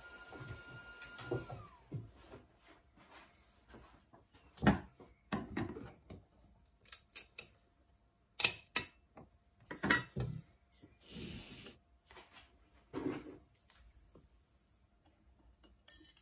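Screwdriver levering the lid off a metal tin of wood stain: a scattering of sharp clicks, taps and metallic knocks at uneven intervals.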